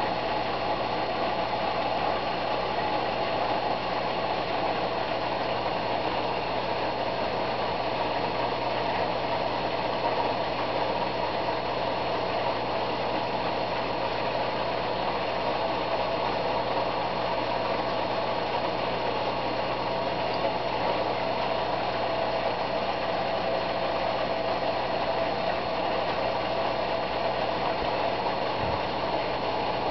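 A small motor running with a steady mechanical hum and whirr, unchanging throughout, with a low steady hum beneath.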